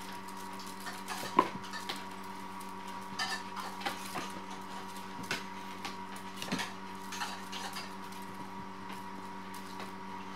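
Light clinks and taps of dishes, scattered irregularly over a steady hum, the sharpest about one and a half seconds in.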